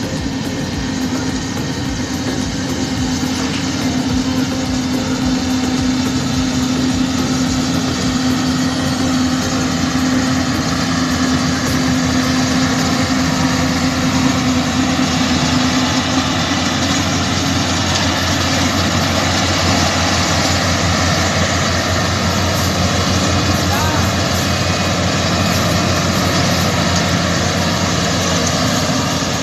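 Yanmar rice combine harvester's diesel engine running steadily under load while it harvests and approaches. The sound grows louder over the first few seconds, then holds even.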